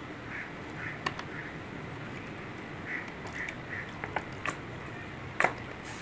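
A pointed metal tool poking and scraping at a plastic bottle cap and dish to enlarge small water holes: scattered sharp clicks and a few short squeaks.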